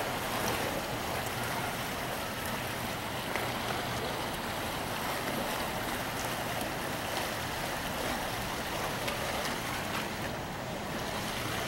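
Steady rush and splash of water pouring from a docked cargo ship's hull outlets into the partly frozen harbour, with a faint low steady hum underneath.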